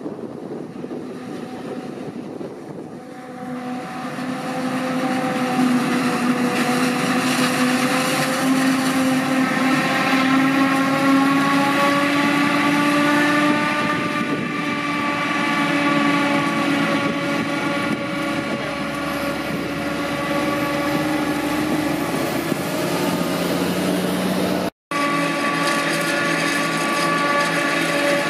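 A Claas Jaguar 960 forage harvester with a Kemper 390 plus maize header is chopping maize, with a Fendt tractor and trailer running alongside. Its engine and chopping gear make a steady whining hum that drifts slightly in pitch and grows louder as the machines approach. The sound cuts out for a moment near the end.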